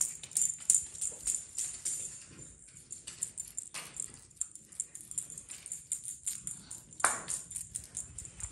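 A small bell on a cat toy jingling in quick, irregular shakes, with a couple of louder scuffs about four and seven seconds in as kittens pounce.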